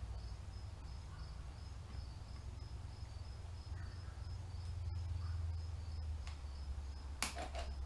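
A cricket chirping in a steady, evenly spaced high-pitched rhythm over a low hum. Near the end comes one short, sharp knock.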